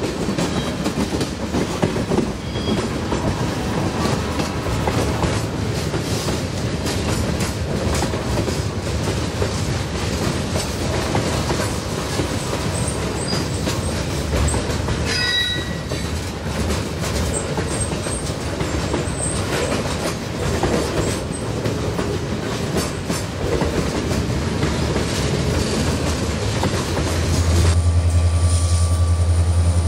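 Freight train rolling slowly over jointed track, its wheels clacking with a few brief high flange squeals about halfway through. Near the end the sound changes abruptly to the steady low drone of the lead EMD SD70M diesel locomotive's engine close by.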